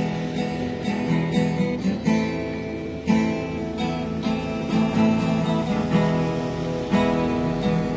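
Acoustic guitar strummed, chord after chord, with the notes ringing on between strokes and no singing.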